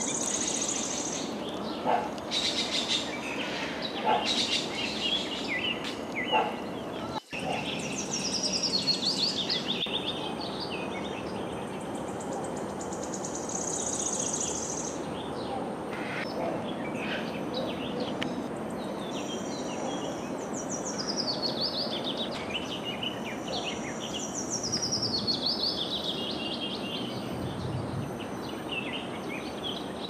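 Assorted birds chirping and calling: many short high chirps and several descending whistled call series, over a steady background hiss of ambient noise.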